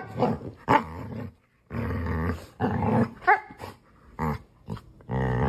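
A dog making a series of short growly, grumbling vocalisations, broken by brief pauses, with a quick higher yelp a little past three seconds in.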